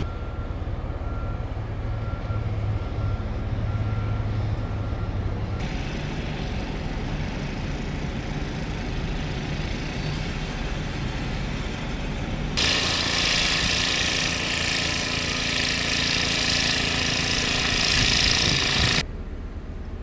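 Engines running through a run of short snow-clearing shots: a pickup truck driving through deep snow, then a Bobcat skid-steer loader and a walk-behind snowblower at work. For about six seconds in the second half a loud steady rushing hiss sits over the engine hum, then stops abruptly near the end.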